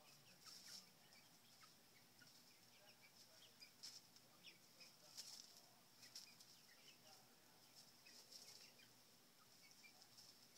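Seven-week-old chickens peeping and clucking softly while foraging, with a few short rustles of dry leaves and mulch being scratched.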